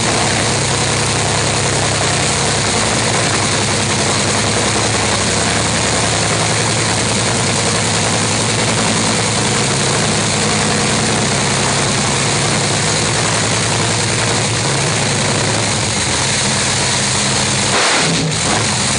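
Loud engine running steadily at idle, with a brief break and change near the end.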